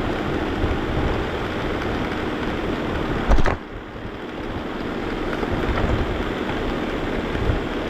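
Vacuum cleaner running with a steady loud rush. About three seconds in there is a sharp knock, after which the sound drops and turns duller for a moment, then builds back up.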